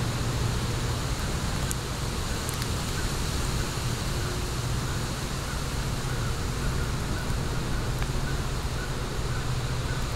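Wood fire burning in a fire pit, with a few faint crackles, over a steady low rumble.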